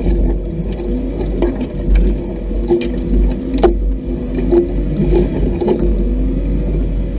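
Off-road vehicle driving along a rough trail: a steady engine rumble with rattling and a few sharp knocks.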